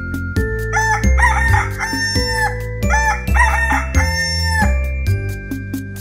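A rooster crowing twice, each crow lasting about two seconds, over background music with a steady beat.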